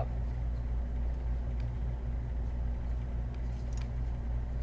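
Steady low background hum, with a faint click about one and a half seconds in and a sharper short click near the end.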